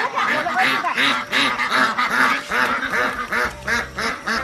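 A flock of white domestic ducks quacking, many short calls overlapping in a constant clamour as the birds are chased and herded.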